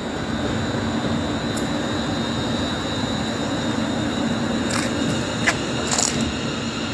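Express passenger train passing through the station at speed: a steady rush of wheel and air noise, with a few sharp clicks from the wheels over the rails near the end.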